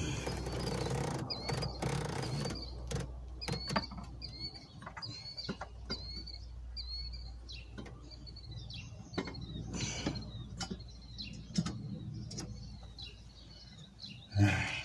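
Scattered light knocks and clicks as the intake manifold is laid onto the engine and lined up on its gaskets, over a steady low hum. A small bird chirps repeatedly, about twice a second, through the first two-thirds.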